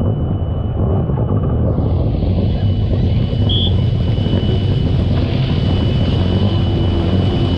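Kawasaki SX-R 1500 stand-up jet ski's four-cylinder four-stroke engine running hard under load, a steady heavy drone with water and hull noise.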